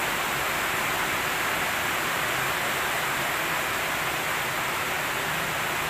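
Steady, even background hiss with no other distinct sound.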